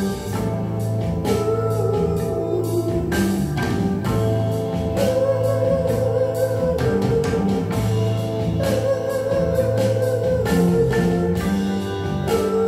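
Hard-rock band recording played back through floor-standing hi-fi loudspeakers, with electric guitar and drums, continuous at a steady level.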